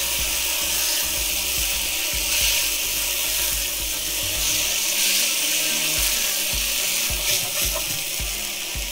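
Diced marinated chicken pan-frying in a little oil in a nonstick frying pan, a steady sizzle as it is stirred with a silicone spatula. Background music plays underneath, with a low beat about twice a second from about six seconds in.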